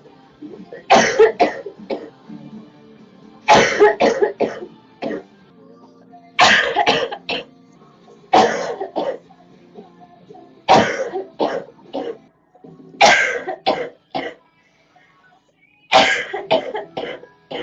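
A girl coughing repeatedly: about seven fits of two to four hard coughs each, coming every two to three seconds.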